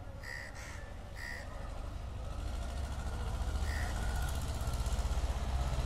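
Low engine rumble of a motor vehicle, growing steadily louder as it approaches. Crows caw three times in the first second and a half and once more near the four-second mark.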